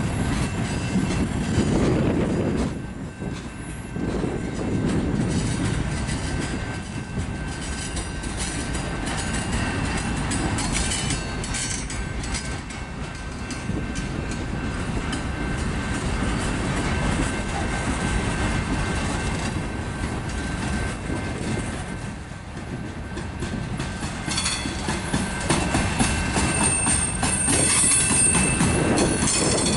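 Freight train's tank cars and covered hopper cars rolling past: a steady rumble and rattle of steel wheels on the rails.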